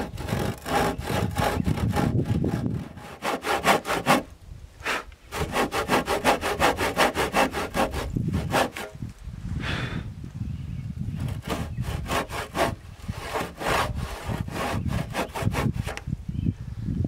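Handsaw cutting across a timber beam in quick, even back-and-forth strokes, rasping through the wood, with short pauses about four seconds in and again around ten seconds.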